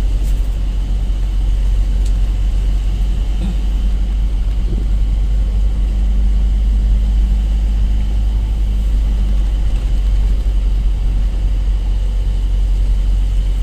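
A truck's engine running steadily under way, heard from inside the cab as a constant low rumble mixed with road noise.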